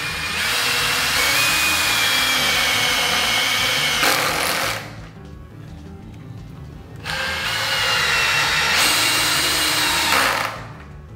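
Einhell 18 V brushless cordless drill-driver driving a 50 mm screw into pine wood, in two runs of about four seconds each with a steady motor whine. Each run gets louder and harsher near its end, as the screw goes home.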